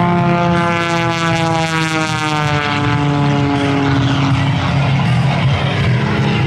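A modified Pitts Special aerobatic biplane's 400-horsepower propeller engine running hard in a display. Its pitch falls over the first few seconds as it passes, then holds steady.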